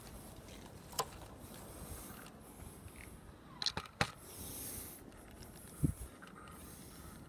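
A few scattered sharp clicks and light knocks of handling, with a brief hiss around the middle; no motor is running.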